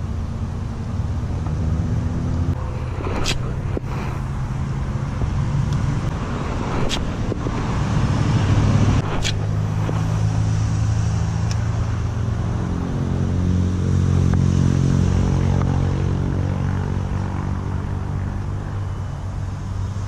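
Road traffic: vehicle engines running and passing, their pitch shifting slowly and the sound swelling about eight seconds in and again around fourteen to fifteen seconds in. A few sharp clicks stand out at about three, seven and nine seconds in.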